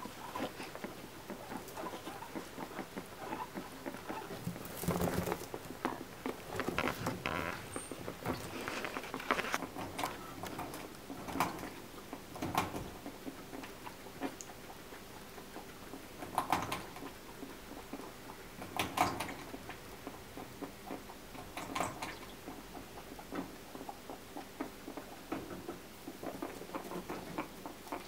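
Guinea pigs rustling through hay and wood-shaving bedding as they feed: a continuous patter of small crackles and rustles, with a few louder crunches scattered through.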